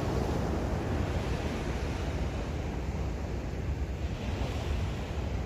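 Wind blowing across the microphone, a steady low rush, with the sea washing against the jetty.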